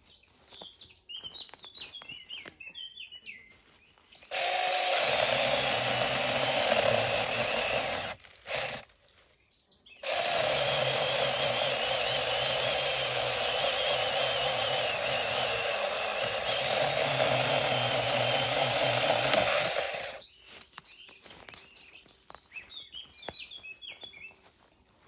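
Battery-powered mini chainsaw running in two long stretches, about four seconds and then about ten, with a short blip between, as it cuts fallen branches. Birds chirp before and after.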